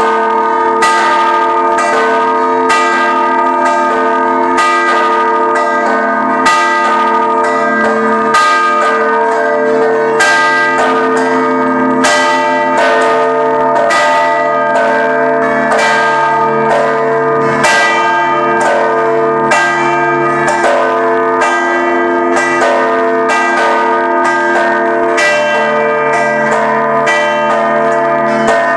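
Church bells ringing a festive procession peal: several bells struck in a steady run, about one and a half strikes a second, their tones overlapping and ringing on continuously.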